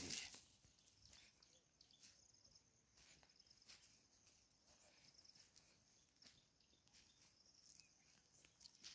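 Near silence in the open air: a faint, steady high chirring of insects, with a few soft scattered rustles and one brief louder rustle at the very start.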